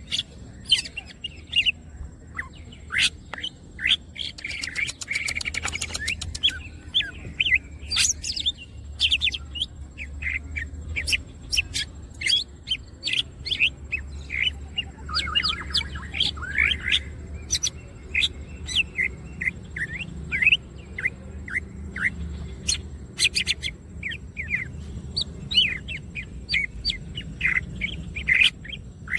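Green leafbird (cucak ijo) singing non-stop: a fast, continuous run of short chirps and sweeping whistled notes, with quick rattling trills in places. A low steady hum lies beneath.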